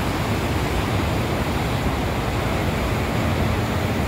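Rough sea surf breaking in a steady rush, with a deep rumble underneath.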